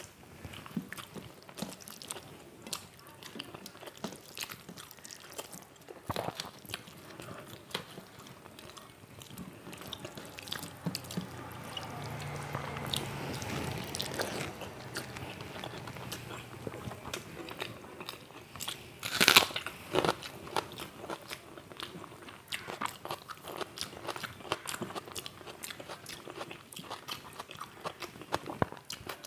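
A person eating close to the microphone: biting, chewing and crunching fried food, with many short crisp clicks and wet mouth sounds. There is a denser, louder stretch of chewing around the middle and one sharp loud crunch about two-thirds of the way in.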